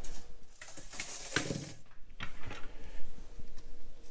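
Light clicks and scratchy rustles of hands handling tools and wood, with a longer scratchy stretch about a second in.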